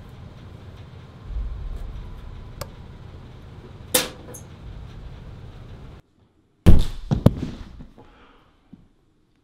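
A low steady rumble with a few faint ticks and a sharp click about four seconds in. Then the sound cuts out, and a loud cluster of thuds and knocks follows: a person falling hard to the floor.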